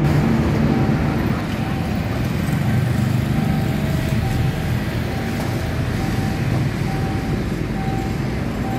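Cars and motorbikes moving over a railroad level crossing, their engines and tyres making a steady traffic rumble. Through it, the crossing's warning signal repeats a short electronic tone about every 0.7 s while the barrier arms lift after the train has cleared.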